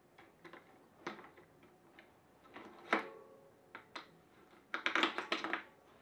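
Small clicks, taps and light metallic rattles from hands working at a mountain bike's front wheel and brake. There is a sharp click about three seconds in, and a quick run of rattling clicks near the end.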